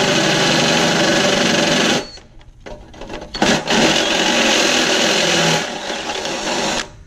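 Ryobi cordless drill running a step drill bit through the ammo can's steel lid to cut the speaker port hole. The motor runs steadily, stops about two seconds in with a short blip, restarts about a second later, then runs lighter and stops near the end.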